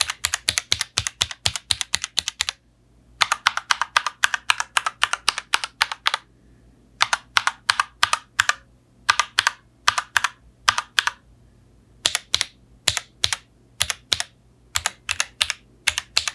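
Keys typed rapidly on a Royal Kludge mechanical keyboard fitted with RK Yellow linear switches, about five keystrokes a second in runs, with short pauses between runs.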